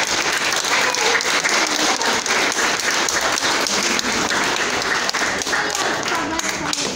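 Audience applauding: dense, steady clapping, with a few voices under it.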